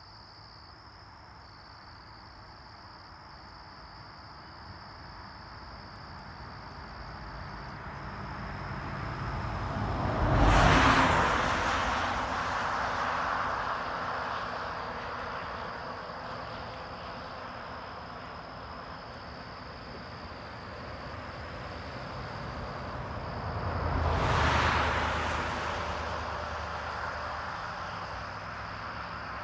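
Road traffic passing close by at highway speed: a box truck goes by about a third of the way in, the louder of the two, and a van near the end, each swelling up, peaking and fading away as its tyre and engine noise recedes. Insects trill steadily underneath.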